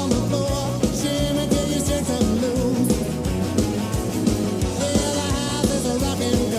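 The Dallas Stars' win song: an upbeat rock song with singing, guitar and a steady drum beat.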